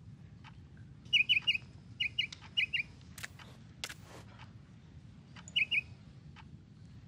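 Caged canary chirping in short quick clusters: three chirps a little after the start, two pairs soon after, and another pair later on. Faint ticks about once a second run underneath, with two sharper clicks near the middle.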